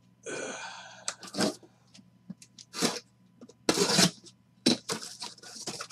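Cardboard boxes being handled: a scraping rub as one slides against another, then several light knocks and rustles as boxes are moved and set down.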